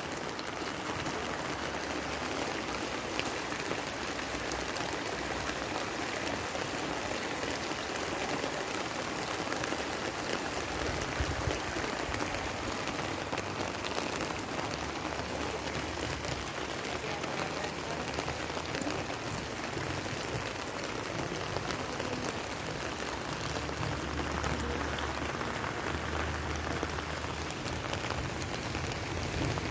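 Steady rain falling, an even hiss with no breaks, with a low rumble coming in now and then.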